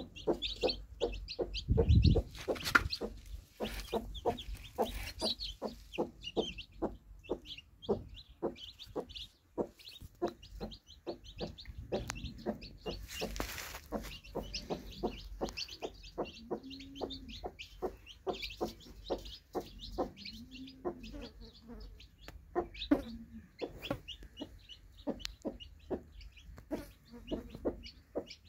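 Newly hatched chicks peeping constantly in quick short notes, while the broody hen answers now and then with soft, low clucks. A dull bump stands out about two seconds in.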